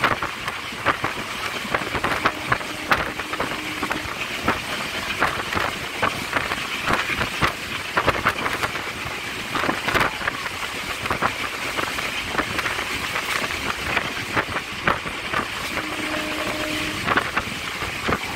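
A moving train heard from on board: a steady running noise with wind and dense, irregular rattling and clanking of the carriage and wheels on the track.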